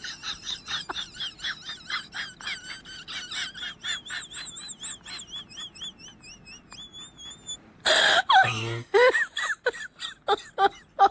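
High-pitched, laugh-like voice in quick rhythmic bursts, about three to four a second, warbling up and down. About eight seconds in it gives way to a much louder wailing voice.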